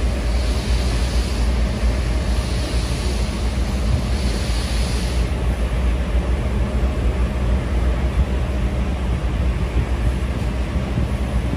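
Steam-hauled train starting away, heard from inside a passenger carriage: a steady low rumble of the moving car, with slow, evenly spaced hisses of steam from the 8620-class steam locomotive that die away about five seconds in.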